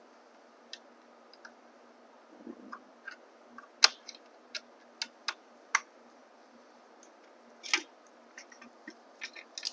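Tiny Torx T10 screws being backed out of a plastic wiring cover on an e-bike frame with a hand screwdriver: scattered small sharp clicks and ticks of the driver and screws, the loudest about four seconds in, and a short scrape near the end.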